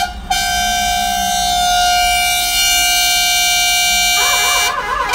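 Truck air horn blowing: a short toot, then one long, loud, steady blast of about four seconds. Near the end a warbling, wavering horn cuts in.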